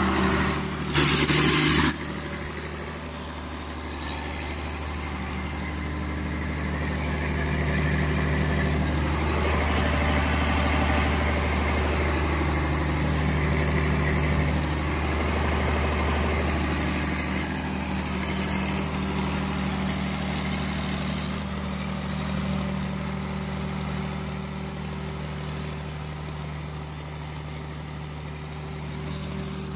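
Cummins diesel generator engine running steadily, with its low hum swelling and easing slightly. About a second in, a loud burst of noise lasts about a second.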